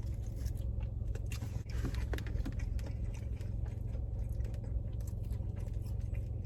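Close-up chewing and lip-smacking on fried seafood: a quick run of small, irregular wet clicks. Under it runs a steady low hum from inside the car.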